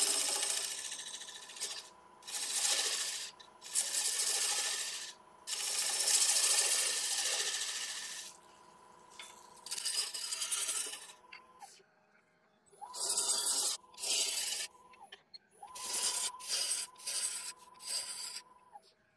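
A gouge cuts a spinning sycamore blank on a wood lathe: a run of hissing, rasping cuts, each lasting from about half a second to two seconds with short pauses between. Near the end the cuts come as several short, quick passes. A faint steady whine sits under the cuts.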